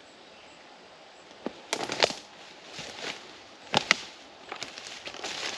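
Footsteps on dry ground and brush: a few sharp crunches, two close together about two seconds in, two more near four seconds, then lighter ones toward the end.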